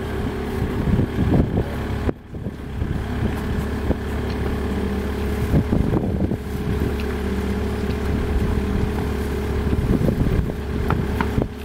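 Kubota compact wheel loader's diesel engine running steadily, with a few light knocks over it.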